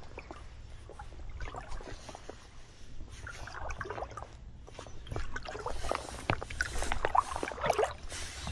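Shallow river water sloshing and splashing in irregular bursts, busier in the second half.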